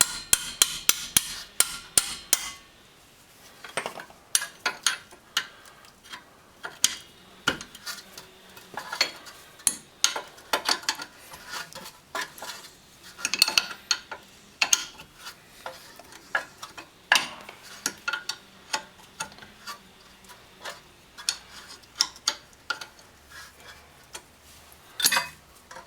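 Wrench and hammer on seized, rusty brake caliper bracket bolts: sharp metallic clinks and taps, the wrench being struck to break the bolts loose. A quick run of clinks comes at the start, then irregular single strikes, a few much louder than the rest.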